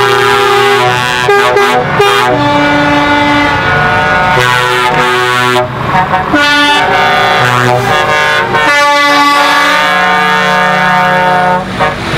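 Truck air horns sounding in long, overlapping blasts at several different pitches, the chord changing every second or two, over the running of the passing trucks.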